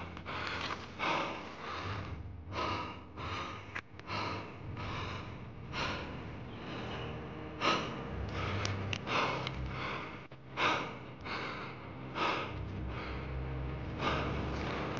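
A person breathing hard and close to the microphone, one noisy breath about every second, out of breath from the effort of pushing through steep, brushy ground. Rustling of brush and dry leaves is mixed in.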